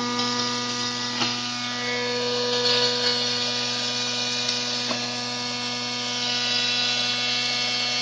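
Electric motor of a homemade string-trimmer lawn mower running with a steady whine at full speed. Turning the speed controller's knob and pressing its stop switch do not slow it, the sign of a faulty speed regulator. At the very end it is cut by a separate switch and starts to wind down with a falling whine.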